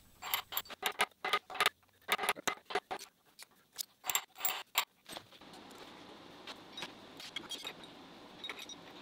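Small steel parts of a knee mill's Z-axis crank assembly clinking and rattling as a washer and nut are worked off the crank shaft by hand. There are a dozen or so quick metallic clinks over the first five seconds, then a faint steady hiss with a few light clicks.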